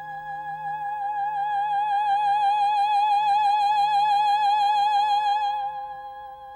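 Operatic soprano holding one long high note with an even vibrato, swelling to its loudest in the middle and then softening, over a soft sustained orchestral accompaniment.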